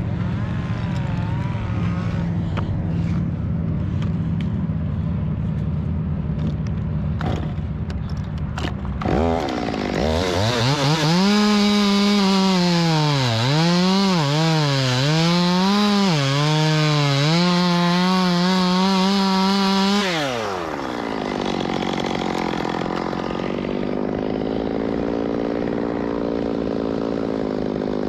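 Two-stroke chainsaw idling, then revving up about nine seconds in and cutting through a palm trunk for about ten seconds, its pitch dipping and recovering several times as the chain bogs in the tightly packed palm fibre. It drops back to idle about twenty seconds in.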